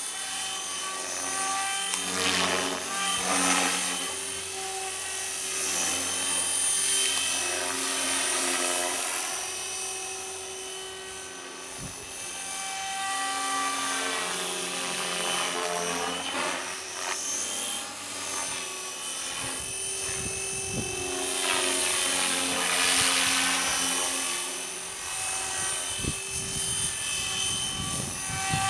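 Radio-controlled model helicopter in flight: a continuous whine of motor and rotor whose pitch shifts as it manoeuvres, swelling and fading several times as it sweeps past.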